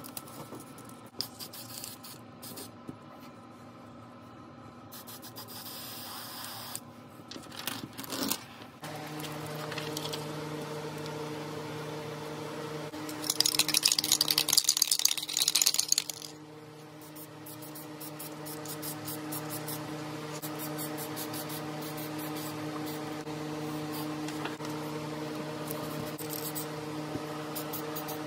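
Paper stencil handled with rustles and light taps, then a steady low hum sets in. About halfway through, a loud hiss lasts about two and a half seconds.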